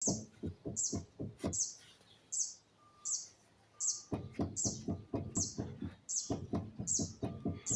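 A small bird chirping over and over, about two or three short high chirps a second, with no let-up.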